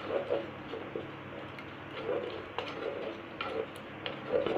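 Spoon stirring thick masala gravy in a clay pot, with irregular taps and scrapes of the spoon against the pot's clay sides.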